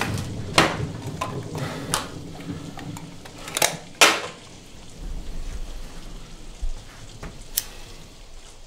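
A handful of sharp clicks and knocks of small objects handled on a wooden tabletop, the loudest two close together about four seconds in, with a low rumble coming in about halfway through.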